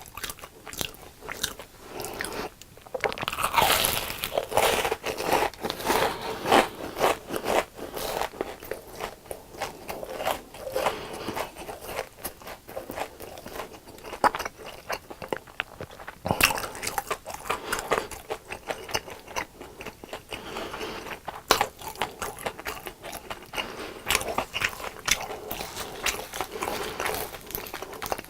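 Close-up crunching, biting and chewing of crispy fried food, a steady run of crackly crunches with a busier, louder stretch a few seconds in.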